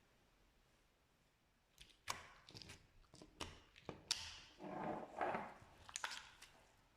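Slime being handled and pressed: a run of sharp, sticky clicks and pops starting about two seconds in, with a longer squelch around the middle.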